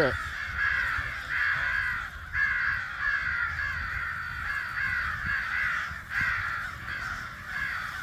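Crows cawing over and over, many harsh caws overlapping into a steady chorus.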